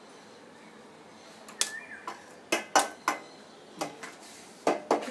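Metal spoon clinking and knocking against the beaters of a hand mixer and a metal mixing bowl, about seven sharp knocks in the second half, with a short ring after the first.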